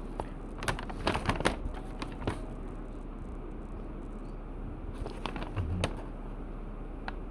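Paper instruction leaflet being handled and its pages turned: short crinkles and rustles in two bursts, one about a second in and another about five seconds in, over a steady low hum.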